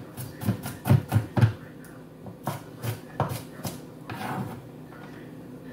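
Kitchen knife chopping garlic cloves on a wooden cutting board: a quick run of knocks, heaviest about a second in, then sparser strokes that stop after about four seconds.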